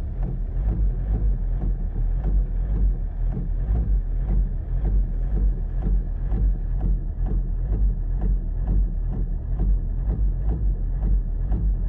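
Toyota Corolla E12 2.0 D-4D four-cylinder common-rail diesel engine running with a steady, evenly repeating knock over its low drone: an engine knock fault.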